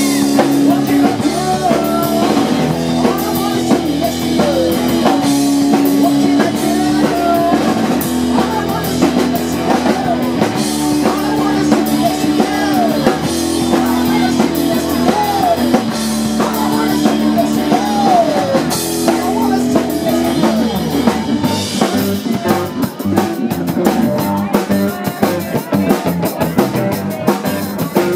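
Rock music with a full drum kit and guitars playing an instrumental passage, a sliding melodic line over held chords; the drums grow busier about two-thirds of the way in.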